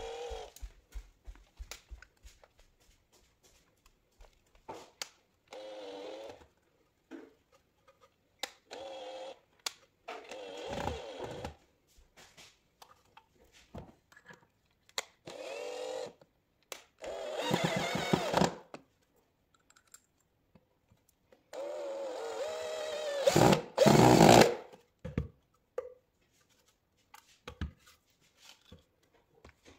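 Cordless drill-driver running screws through black metal corner brackets into a wooden plank, in short bursts of whine with clicks and knocks of handling between them. The longest and loudest burst comes near the end.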